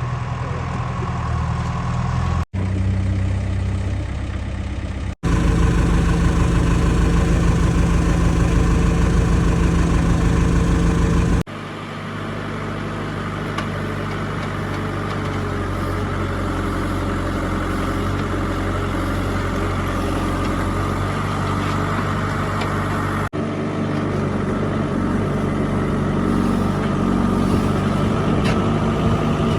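JCB 3DX backhoe loader's diesel engine running steadily. Its pitch and load shift at several abrupt cuts.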